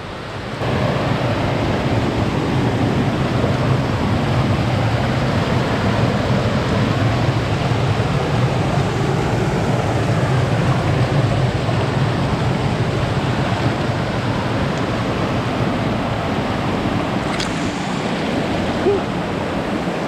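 Loud, steady rush of a mountain creek's flowing water, setting in about half a second in.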